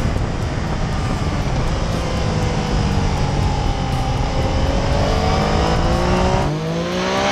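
Yamaha FZ-09's three-cylinder engine under way with heavy wind rush. The engine note dips slightly, then climbs as the bike accelerates, rising sharply near the end.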